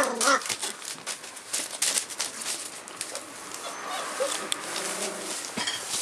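Rough collie puppies whining, with a short cry at the start and a brief small one about four seconds in, over frequent scratchy rustling and clicking of paws scrabbling on newspaper.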